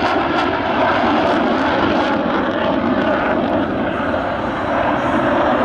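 F-16 fighter jet in flight with its engine in afterburner: a loud, steady jet noise.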